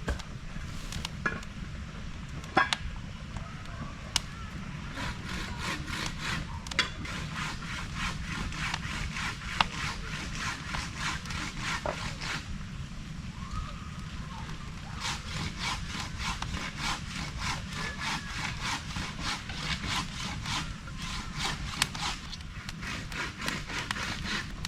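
Rapid, repeated scraping strokes, like a hand saw or rasp working wood, in two long runs with a short pause between them. A few separate clicks come before them, over a steady low rumble.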